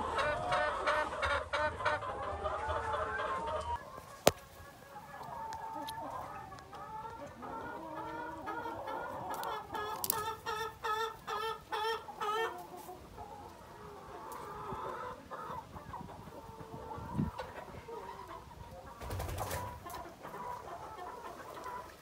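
Laying hens clucking in runs of quick repeated calls, busiest in the first few seconds and again from about eight to twelve seconds in, with quieter scattered clucks between. A single sharp click about four seconds in.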